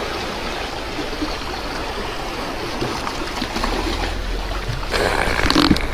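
Seawater washing and trickling over the shore rocks, a steady rushing noise, with a brief louder rustle near the end.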